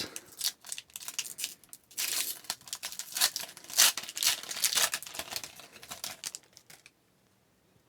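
Hockey card pack wrapper being crinkled and torn open, with a dense, irregular rustle of crackles and crinkles that stops about a second before the end.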